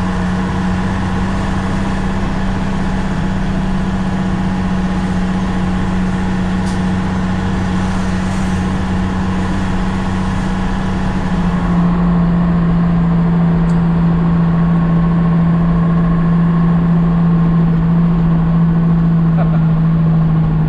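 Diesel engine of a Nissan CK31L concrete pump truck running steadily under way, heard from inside the cab. About eleven or twelve seconds in, the engine note steps slightly lower and gets a little louder, then holds.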